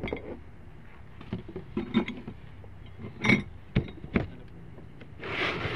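Household items being rummaged through and moved: a handful of light knocks and clinks of dishes and glassware, then a brief rustle near the end.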